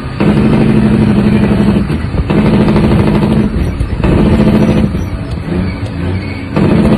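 Heavy truck's diesel engine heard from inside the cab, pulling hard in runs of about a second or so. The note dips briefly between runs as the driver shifts up through the gears.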